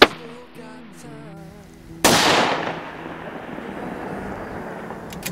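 Two rifle reports from a .223 rifle: a sharp crack right at the start, then about two seconds in a second blast that dies away over about a second. Music plays underneath.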